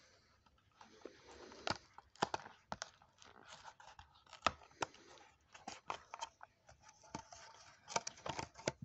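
A small cardboard box being worked open by hand, with a blade cutting at the taped end flap: scattered faint clicks, scratches and short tearing sounds of card and tape.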